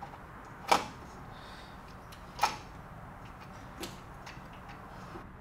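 Two sharp metallic clicks about a second and a half apart, then a fainter one, as the newly seated distributor on a big-block Chevy V8 is handled.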